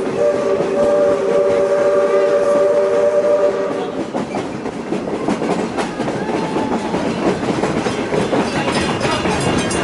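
Steam locomotive's whistle sounding one long chord of several steady tones, cutting off about four seconds in. The excursion train's wheels then clatter and rattle along the rails.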